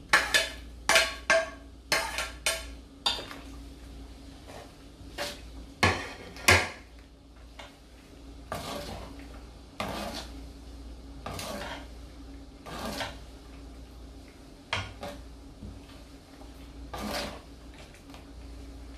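A metal ladle clinking against a plate and the rim of an aluminium cooking pot as bell pepper strips are scraped in, a quick run of sharp clinks in the first few seconds and two louder knocks a little later. Then a metal utensil stirring and scraping in the pot, a scrape every second or two, over a faint steady hum.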